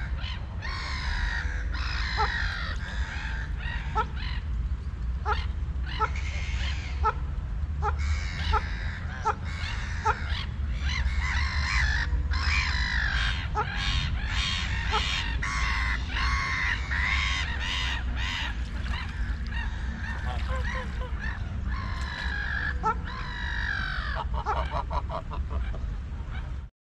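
A flock of waterfowl calling over and over, many overlapping honking calls about every half second, over a low steady rumble.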